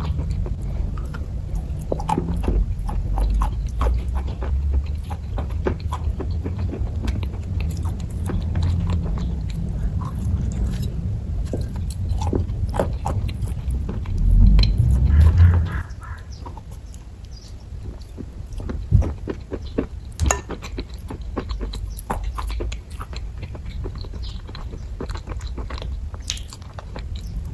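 Close-up chewing of kaju katli, with many soft, sticky mouth clicks and smacks. A low rumble underlies the first half and stops about halfway through.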